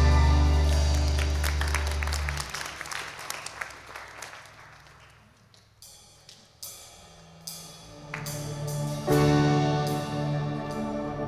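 Live worship-band instrumental music between songs. A full held chord dies away with scattered struck notes, then after a near-quiet moment a few single notes sound and a soft sustained chord swells in about nine seconds in.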